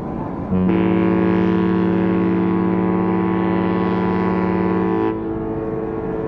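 A ship's horn sounds one long blast of about four and a half seconds, starting about half a second in. It plays several steady pitches at once, like a chord, then cuts off. A fainter horn tone sounds before the blast and lingers for a moment after it.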